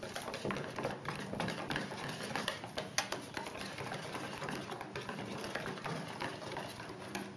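Wire whisk ticking and scraping rapidly and irregularly against a stainless steel bowl, stirring dark chocolate into thick hot pastry cream as it melts.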